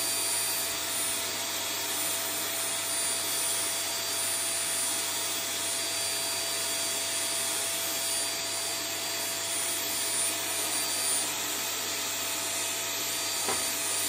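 Vacuum cleaner running steadily: an even rush of air and motor with a constant whine.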